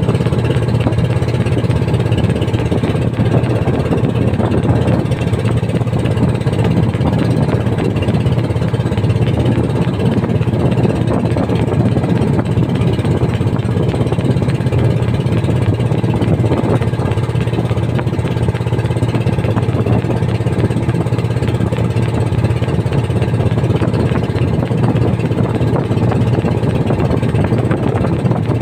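Motorized outrigger boat (bangka) engine running at a steady, unchanging speed under way, heard loud from on board.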